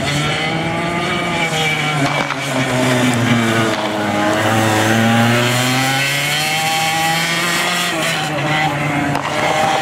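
Racing go-kart engine being driven hard through a cone course, its pitch repeatedly dropping as it slows for turns and climbing again as the throttle opens.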